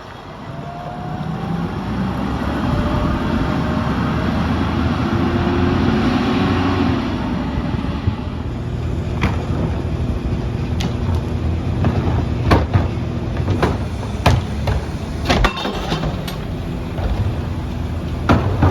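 CNG Mack LR rear-loader garbage truck running and growing louder over the first few seconds, then a series of sharp metallic clanks and bangs over its running engine.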